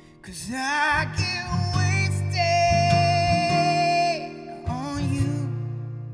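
A man singing with his own acoustic guitar: a wavering phrase begins just after the start, then he holds one long note for about two seconds, and a short phrase follows over ringing guitar chords.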